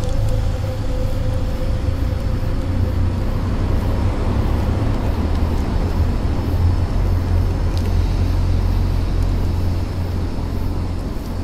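Dark ambient drone music: a deep, steady low rumble under a noisy, swelling wash, with a held higher tone that fades out in the first few seconds.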